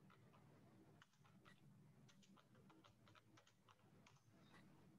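Faint typing on a computer keyboard: a run of quick, irregular key clicks.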